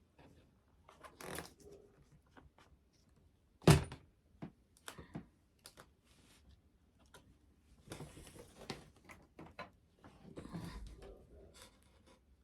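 Handling noises from foam-board crafting: scattered taps and rustles, with one sharp knock about a third of the way in.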